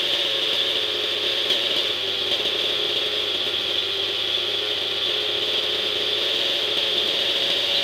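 OS 50 Hyper glow (nitro) engine of a Hirobo SDX 50 model helicopter running steadily on the ground while being run in, its note wavering slightly, with a steady high whine above it.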